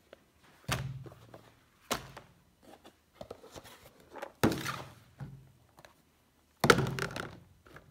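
Objects being set down and handled on a workbench: several separate thunks with rustling in between, the loudest about two-thirds of the way through.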